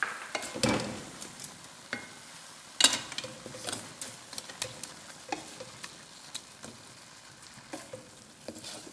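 Wooden spatula stirring grated gourd and sugar in a metal kadhai, with repeated scrapes and knocks against the pan, the sharpest about three seconds in. Under it the mixture sizzles faintly as it cooks.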